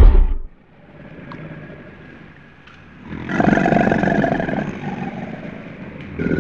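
Recorded dinosaur roar: a loud roar cuts off about half a second in, and a second, rough, pulsing roar starts about three seconds in and dies away over the following seconds.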